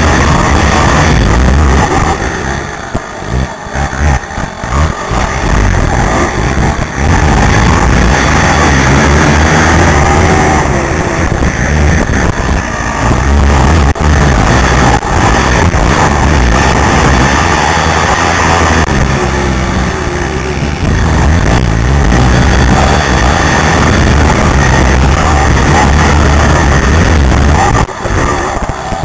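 Racing quad's engine heard from a helmet camera, pulling hard with the throttle rising and falling. It eases off for a few seconds about two seconds in, then revs up again, with wind rush over the microphone.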